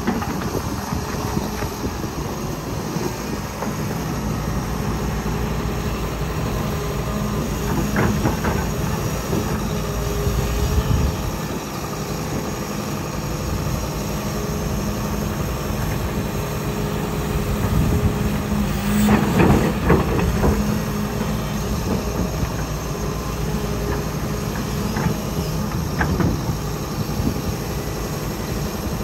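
Diesel engine of a Komatsu hydraulic excavator running steadily under digging load, with a few short metallic clanks from the bucket and boom, the loudest about two-thirds of the way through.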